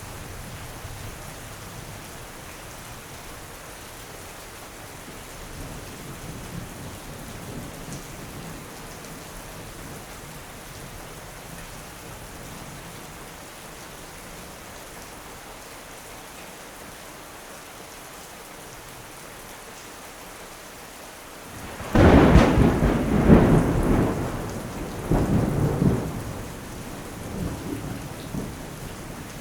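Steady rain, then a sudden loud thunderclap about three-quarters of the way in, rumbling on in several rolling surges before fading to a lower rumble under the rain.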